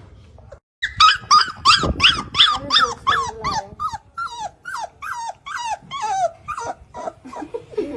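Puppy yelping over and over, about three short, high yelps a second, each dropping in pitch; the yelps grow lower and softer toward the end.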